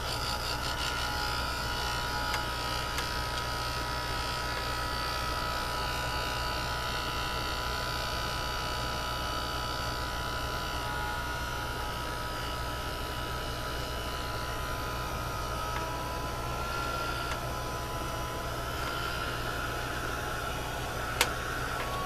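Small handheld electric dryer blowing steadily over wet ink on a card, a steady motor hum with a high whine. A sharp tick near the end.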